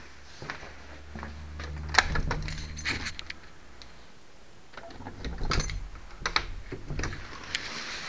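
Irregular clicking and rattling from things being handled close to the microphone, the loudest clicks about two seconds in and again around five to seven seconds. A low hum runs under the first three seconds.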